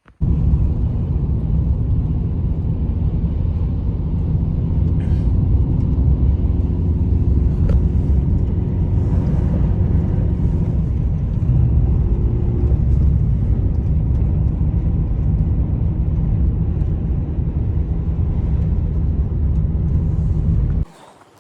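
Strong wind buffeting the microphone: a loud, steady low rumble that starts and stops abruptly.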